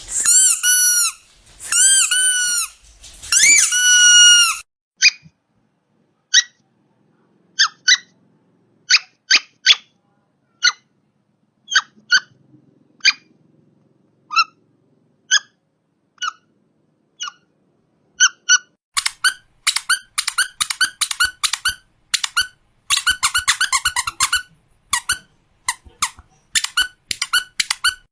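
Rubber duck toy squeezed to squeak: three long squeaks that bend in pitch, then single short squeaks about a second apart, and in the last third quick runs of rapid squeaks.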